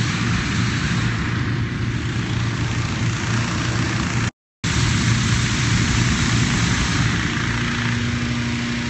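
Engine-driven hot-air balloon inflator fan running steadily with a low hum, blowing cold air into the envelope lying on the grass. The sound cuts out completely for a moment about halfway through.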